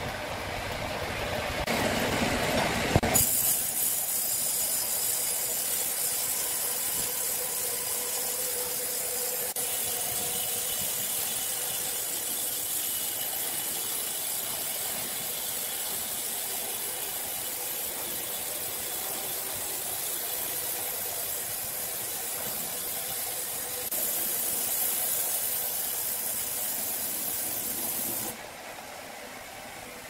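Horizontal band sawmill blade cutting lengthwise through a large timber beam: a steady hissing saw noise that sets in about three seconds in and drops away near the end.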